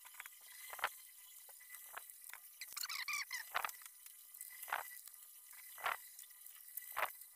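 Cutter blade scraping and prying at the glued silver dust cap of a speaker cone, in short faint scrapes about once a second, with a longer wavering squeak about three seconds in.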